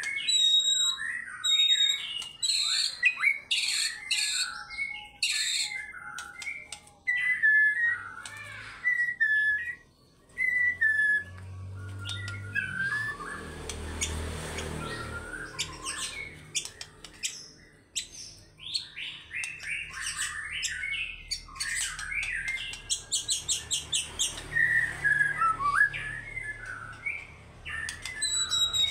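White-rumped shama (murai batu) singing a loud, varied song of whistled phrases and chattering notes, with a run of fast repeated notes about two-thirds of the way through.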